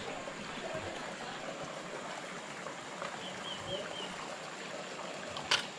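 Steady hiss like trickling water, with a short run of faint high bird chirps about three seconds in and one sharp click just before the end.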